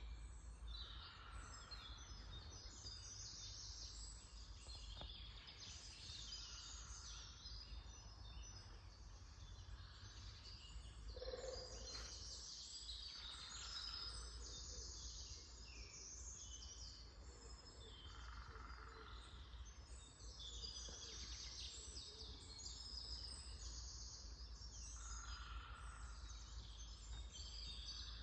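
A dawn chorus of several small songbirds in an early-spring forest, many high chirps and song phrases overlapping throughout, faint. A lower short call repeats about every five or six seconds, over a steady low rumble.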